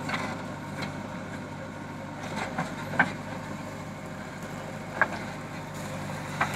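JCB 3DX backhoe loader's diesel engine running steadily under hydraulic load as the backhoe digs and lifts a bucket of soil. Several sharp knocks are heard over the engine.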